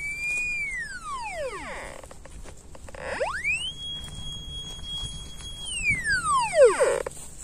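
Geosensis X3 pulse metal detector's audio target signal. A single electronic tone glides up in pitch, holds and slides back down twice as the frame coil passes over a metal target. The second tone is higher and longer than the first. Faint threshold ticks sound between the two tones.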